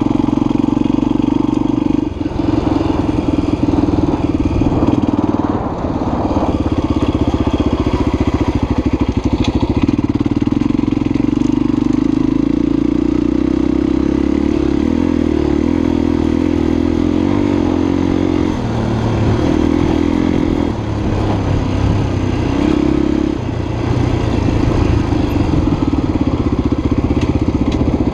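Honda XLR250 enduro motorcycle's single-cylinder four-stroke engine running under way at a steady pace, its note dipping and picking up again several times as the throttle is eased and reopened.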